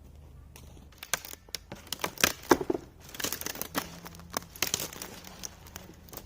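Crinkling and crumpling of handled material, in irregular bursts of sharp crackles beginning about a second in.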